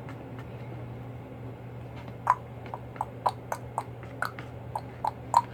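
About a dozen short, sharp clicks and taps at irregular intervals in the second half, over a steady low hum.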